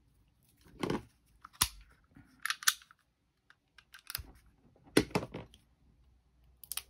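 Plastic shrink-wrap being slit and pulled off a deck of cards with a small utility knife: a string of sharp clicks and short scratchy crinkling rasps of the plastic.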